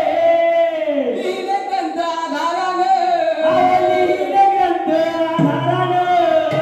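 Folk singer of a Konkan shakti-tura troupe singing a slow, drawn-out melodic line, the held notes gliding up and down.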